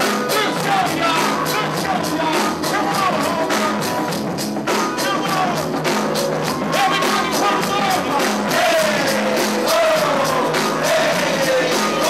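Hip hop track with a steady beat and vocals over it, played loud through a club PA.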